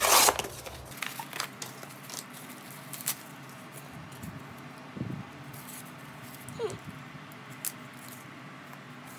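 A plastic mailer crinkles loudly for a moment as it is pushed aside. Faint rustles, taps and clicks follow as a small cardboard package is handled and a box cutter is brought to it.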